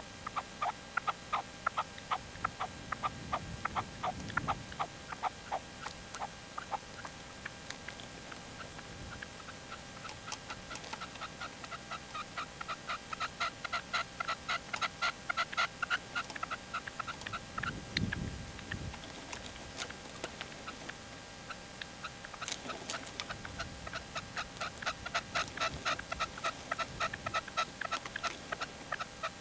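Male red-legged partridge decoy (reclamo) calling: long runs of quick, sharp repeated notes, several a second, in three bouts separated by short pauses.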